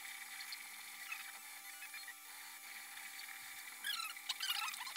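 MakerBot Replicator 2 3D printer printing: its stepper motors whine with a shifting, warbling pitch as the extruder moves. The whine is softer for the first few seconds and grows louder near the end, over a steady hum.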